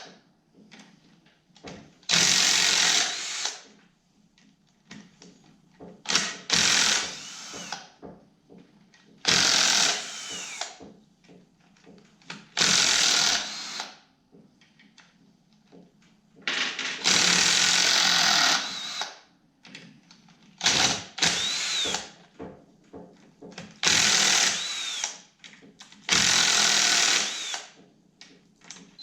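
A 1/2-inch air impact wrench runs in about nine short bursts of a second or two each, spinning out 10 mm bolts, with a whine that rises and falls as it spins up and down.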